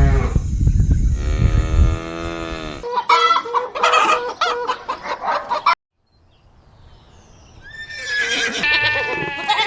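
Farm animal calls cut one after another: a long call falling in pitch over a heavy low rumble, then chickens clucking and crowing, and after a brief gap a goat bleating, starting near the end.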